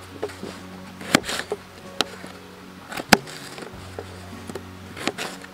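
Kitchen knife dicing red potatoes on a plastic plate: a series of sharp, irregularly spaced chops as the blade cuts through and taps down on the plate, the loudest about a second in and about three seconds in.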